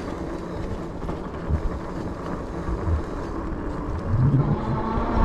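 Fat-tire electric bike riding over a muddy dirt trail: a steady rumble of wind and tyres, with a few soft thumps over bumps. Near the end a whine starts and slowly rises in pitch.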